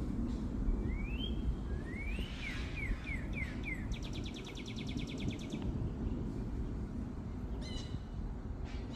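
Songbirds calling over a steady low rumble: a couple of rising whistles, then a run of quick down-slurred notes. This is followed by a fast, dry trill of about a dozen notes a second lasting under two seconds, and another short call near the end.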